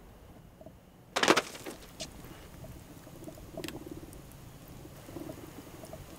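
A paperback book lands in a wood fire in a metal fire pit with a sudden loud burst about a second in. The burning wood then crackles, with a few sharp pops.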